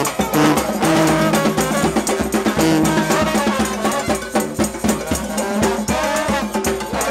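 New Orleans brass band playing live: trombones, trumpet and sousaphone holding and trading horn lines over drums beating out a steady rhythm.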